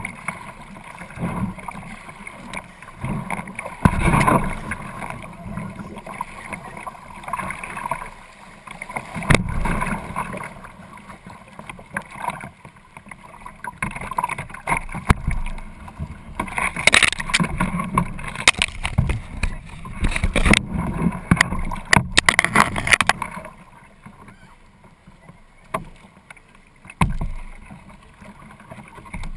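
Kayak being paddled: splashing paddle strokes and water sloshing against the hull, uneven in loudness, with a few sharp knocks spread through it and a busier spell of splashing past the middle.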